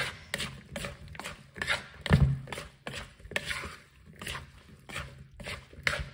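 Plastic spoon scraping and knocking in a plastic mixing bowl as a wet fruit salad is tossed, in irregular quick strokes, with one heavier thump about two seconds in.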